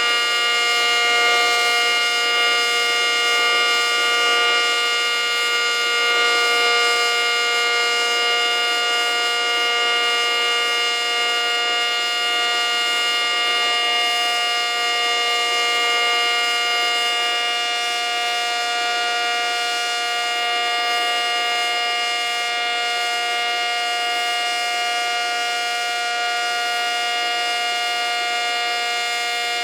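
ACA Cyclone 125 outdoor warning siren sounding a loud, steady tone that holds one pitch without rising or falling, with only slight slow swells in loudness.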